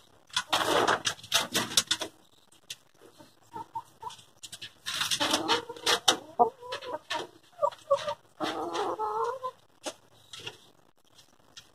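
Chickens in a wire-mesh hutch clucking and giving short squawking calls, most of them in the second half, with bouts of scratchy rustling and clatter as they move about, the loudest near the start.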